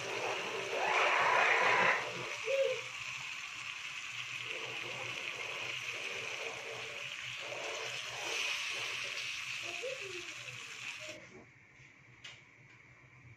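Tomato-onion masala with canned tuna sizzling in a frying pan while a wooden spatula stirs it, with a louder burst about a second in. The sizzle cuts off abruptly near the end.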